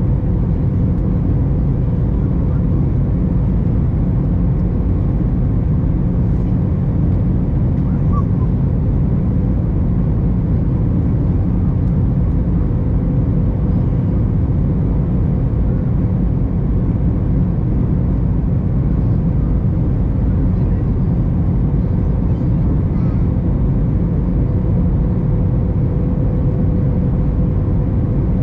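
Steady cabin noise inside an Airbus A321: a constant low rumble of the jet engines and air, with a faint steady hum over it.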